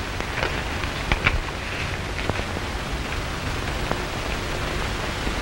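Steady hiss of an old black-and-white film's optical soundtrack, with a few scattered faint clicks.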